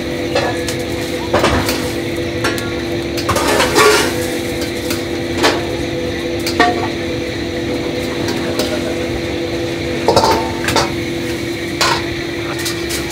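Metal ladle clanking against a wok and ceramic bowls as stir-fried vegetables and soup are ladled into bowls of tanmen noodles, a handful of sharp clanks and short clatters. Under it runs a steady kitchen hum.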